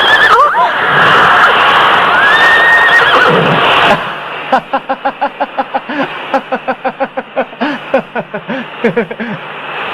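Horse whinnying: after a few seconds of steady rushing noise, a run of short, quavering calls repeats about two to three times a second.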